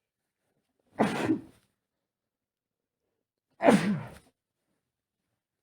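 A man's double sneeze, muffled as he tries to stifle it: two short sneezes about two and a half seconds apart, each dropping in pitch.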